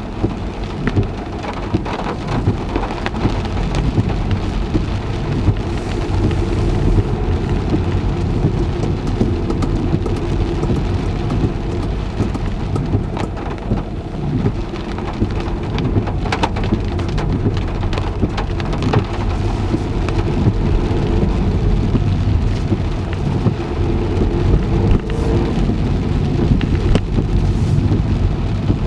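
Heavy rain drumming steadily on a car's roof and windscreen, heard from inside the car, a dense low wash with countless sharp drop hits.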